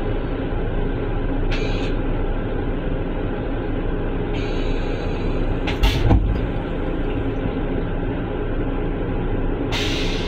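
Metro-North M7 electric railcar running, a steady rumble heard from inside its restroom. Short hisses come and go, and a single thud sounds about six seconds in.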